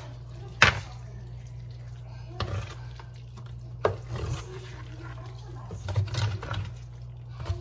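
A plastic spoon stirring and scraping moist cornbread dressing in a disposable aluminium foil pan, with a few sharp taps and scrapes of the spoon against the foil, the loudest a bit under a second in. A low steady hum runs underneath.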